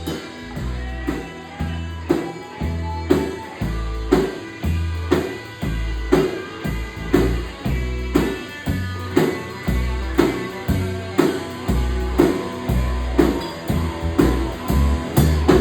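Live rock band playing an instrumental break with no vocals: drum kit keeping a steady beat of about two hits a second under bass and guitar.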